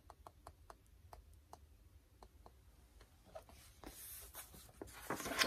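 Pages of a picture book being handled and turned. There are faint light ticks at first, then a louder papery rustle near the end as the pages are flipped over.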